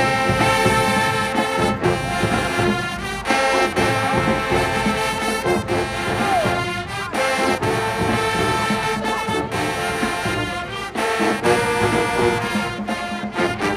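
Marching band playing its field show: the brass section holds loud chords, with drum hits now and then.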